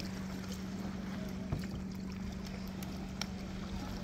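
A steady low hum over a rumble of wind and water noise, with a couple of faint clicks.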